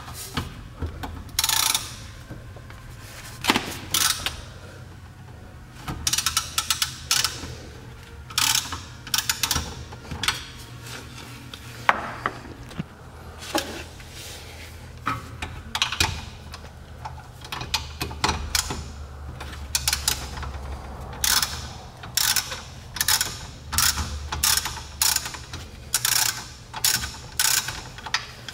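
Ratchet wrench with an E14 socket clicking in repeated short bursts as the four E14 bolts holding the rear wheel bearing are undone.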